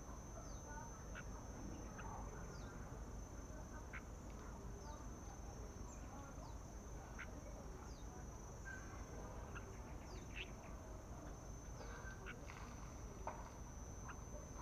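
Faint birdsong over a steady high-pitched drone: short downward chirps come about once a second, with scattered brief calls between them.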